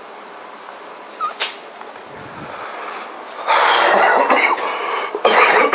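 A man coughing and gasping hard, starting about three and a half seconds in, his mouth burning after a taste of very hot habanero sauce.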